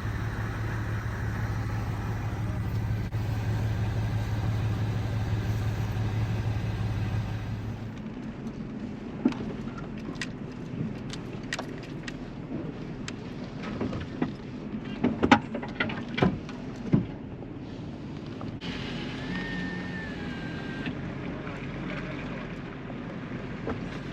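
Off-road vehicle engine running steadily with a low hum, which drops away about eight seconds in. A scattering of short knocks and clicks follows.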